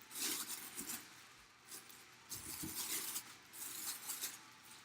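Rustling and handling of packaging, a few short crinkling bursts as the helmet box and its contents are handled.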